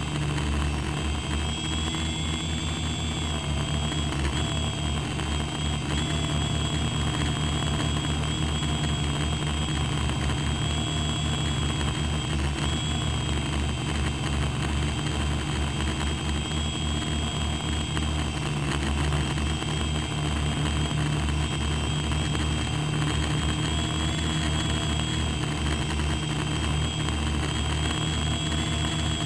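Radio-controlled aircraft's electric motors and propellers, heard from its on-board camera while it hovers: a steady high whine over a low buzzing hum, the whine's pitch wavering slightly.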